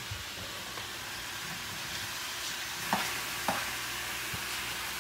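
Food sizzling in a frying pan, a steady hiss, with a few light knocks near the middle.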